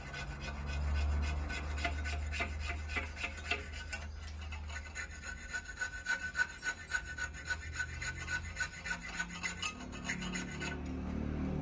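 Hand file rasping in quick, repeated strokes against a small metal piece being shaped into a clutch cable's barrel end, with a steady low hum underneath.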